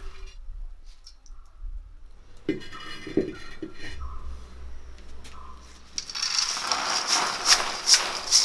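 Metal cooking utensils clinking and scraping in a pan, with a few dull knocks, then a busier run of rapid clicks and rattling from about six seconds in.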